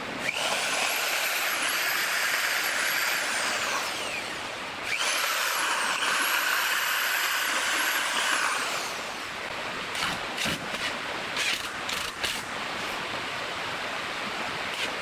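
Electric drill boring pilot holes into pine slats and a plywood base, whining in two bursts of about four seconds each, its pitch sagging and recovering. After that come a few short clicks and brief spurts as a cordless drill drives screws.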